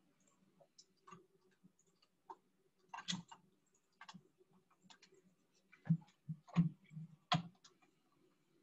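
Scattered computer mouse clicks while layers are selected and removed. A few louder clicks come close together near the end.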